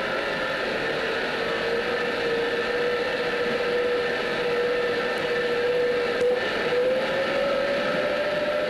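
Locomotive differential gearbox running on an electric-motor test rig: a steady mechanical whine over a dense machinery noise, rising in pitch about seven seconds in.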